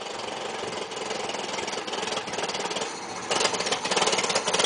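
1914 Calthorpe Minor's side-valve petrol engine running with a rapid, even firing beat, getting louder about three seconds in. It is running under its own power after timing adjustments.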